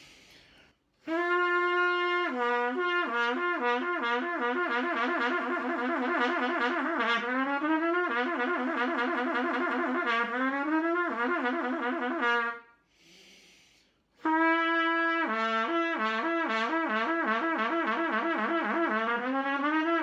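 Trumpet playing lip slurs (lip legato): fast, even alternation between two notes, about a fifth apart, joined by quick rising scale runs and a few held notes. It breaks off for a breath about twelve and a half seconds in, then starts again about a second and a half later.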